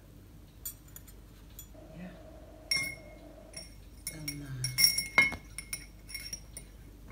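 Cutlery and glassware clinking on a dining table. One clink about three seconds in leaves a glass ringing briefly. A run of louder fork-on-plate and glass clinks follows around five seconds in.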